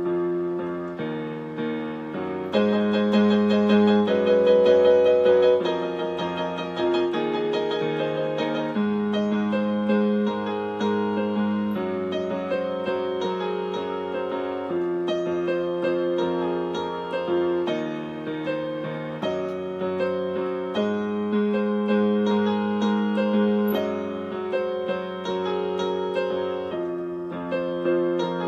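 Digital keyboard played with a piano sound: held chords changing every second or two under a melody line, growing louder about two and a half seconds in.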